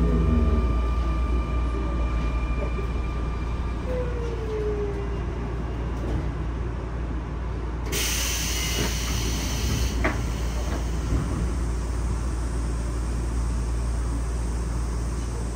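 Interior running noise of a Sotetsu 9000 series electric train: a steady low rumble of the wheels on the rails, with the Hitachi IGBT-VVVF inverter's steady whine stopping about four seconds in. A short hiss comes about eight seconds in, with a click about two seconds later.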